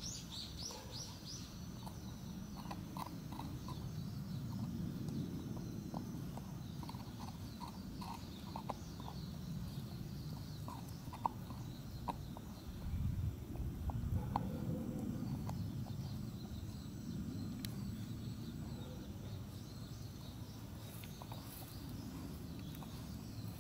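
Golden retriever puppy gnawing on a dog bone: irregular short clicks and scrapes of teeth on the bone, in loose runs, over a low rumble of chewing.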